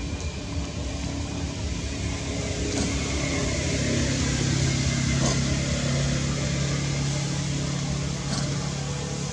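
Steady low engine hum with a few low tones, growing louder from about three seconds in and easing off near the end.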